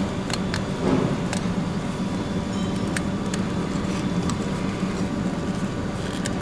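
Steady low machine hum with a scattering of light clicks and taps as a turbo intake hose is fitted back onto its connection.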